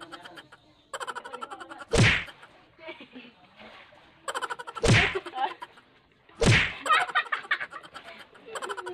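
Three sharp slap-like hits, about one and a half to three seconds apart.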